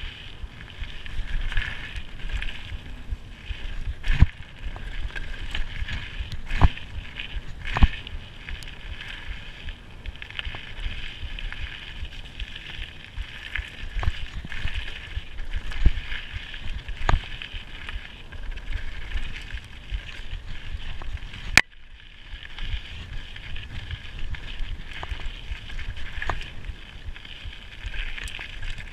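Mountain bike descending a dirt trail at speed: a steady rumble of knobbly tyres on dirt and wind on the camera microphone, broken by sharp knocks and rattles as the bike hits bumps. The sharpest knock comes about three quarters of the way through.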